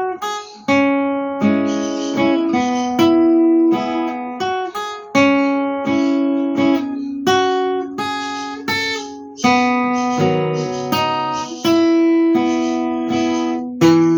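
Acoustic guitar playing a melodic intro in waltz time on the high strings, single melody notes picked with chord strokes between them.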